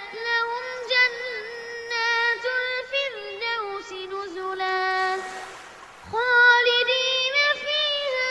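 A boy's voice chanting Quran recitation in the melodic tajweed style, drawing out long held notes that slide between pitches. The voice pauses briefly about five seconds in, then resumes.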